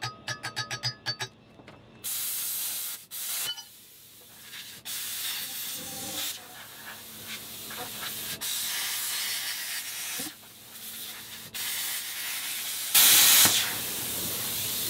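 Plasma cutter cutting through a steel rear-axle tube: a hiss of air and arc that starts and stops in stretches of a second or more, loudest near the end.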